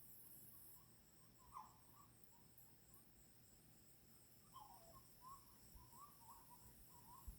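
Faint calls from an unidentified night animal: a falling call, then a longer one sliding down in pitch, followed by a string of short notes at about two or three a second. Steady high insect trilling runs underneath.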